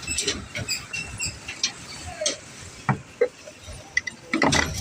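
Scattered light clicks and knocks with a few short high chirps, and a brief burst of a person's voice near the end.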